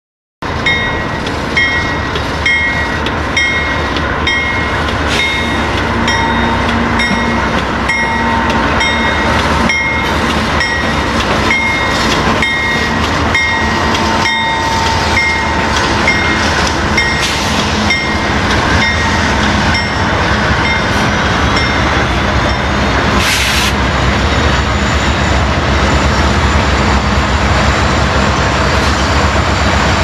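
A lash-up of Union Pacific and BNSF diesel-electric freight locomotives passing close by, engines running under a dense rumble. Wheels click regularly over the rail joints, plainest in the first half, and the low rumble grows heavier toward the end.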